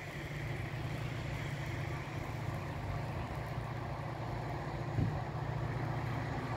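ST44 'Gagarin' diesel locomotive (M62 type, two-stroke V12) droning steadily in the distance as it approaches with a tank-wagon train, with a brief knock about five seconds in.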